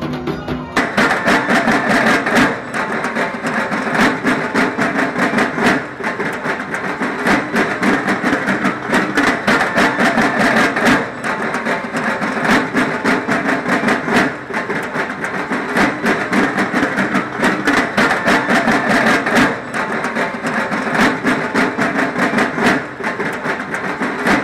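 Drums played in a fast, dense, continuous beat, loud throughout, with short dips every few seconds.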